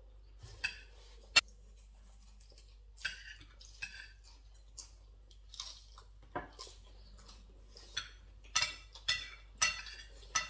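Cutlery clinking and scraping on dinner plates as several people eat, with chewing between. There is one sharp clink about a second and a half in, and a quicker run of clatters near the end.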